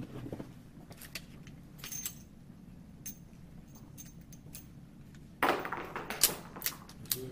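Smith & Wesson .357 Magnum revolver being handled: scattered light metallic clicks and clinks, with a denser run of clatter about five and a half seconds in.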